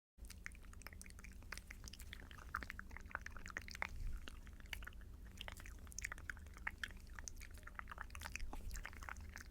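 Earrings handled close to the microphone for ASMR, giving many small, irregular clicks and taps over a steady low hum.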